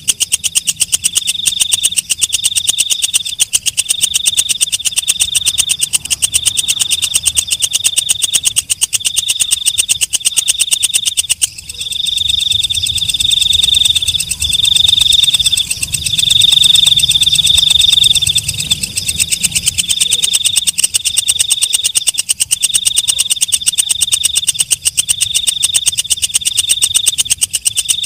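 Green katydid (walang kecek) singing: a high, rapidly ticking buzz in phrases of about a second each, separated by short gaps, repeating steadily.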